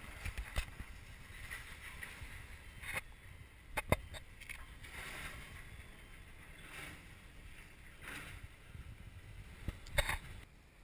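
Handling noise of a GoPro camera being moved about: scattered sharp knocks, the loudest about four seconds in and another near the end, over gusts of rushing, rubbing noise.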